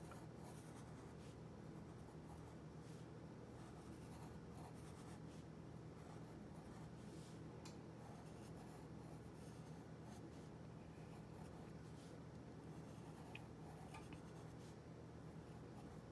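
Graphite pencil scratching faintly on paper in short strokes, over a steady low hum.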